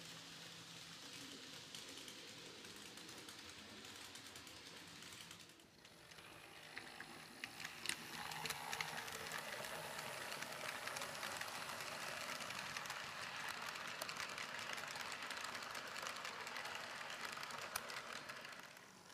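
N-gauge model trains running: a faint steady whir of small motors and wheels on track, then, from about six seconds in, louder whirring from a model electric locomotive and its coaches passing close, with irregular sharp clicks as the wheels cross rail joints and points.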